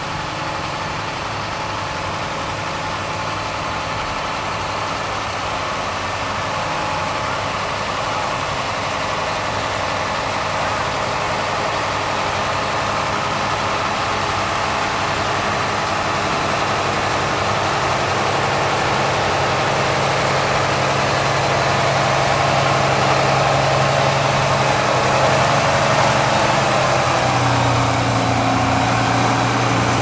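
John Deere 7310R tractor's diesel engine running steadily under load while pulling a seven-furrow reversible plough through stubble. It grows gradually louder as the tractor draws near.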